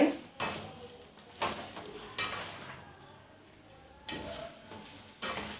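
Spatula stirring beef strips and sliced bell peppers frying in a pan: about five separate scraping strokes through the food, with a short quiet spell in the middle.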